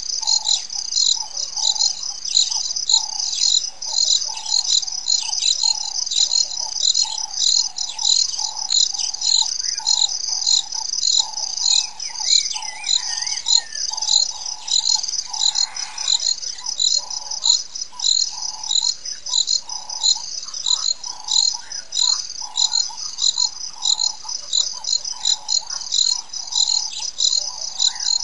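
Insects chirping steadily, a high, even pulse about three times a second, with a lower pulsing call beneath and a few short bird chirps.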